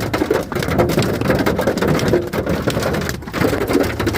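Wind-driven hail and heavy rain pelting a car's body and windows in a dense, continuous patter of impacts.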